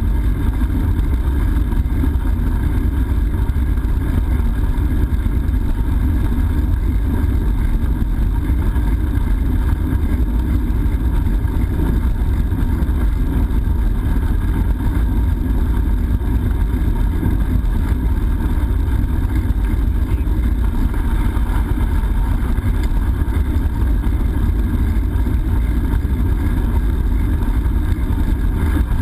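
Steady low rumble of wind buffeting a GoPro camera's microphone on a moving bicycle.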